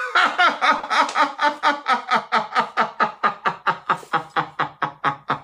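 A person laughing in one long run of quick, even 'ha' pulses, about five a second, which get slightly faster and closer together towards the end.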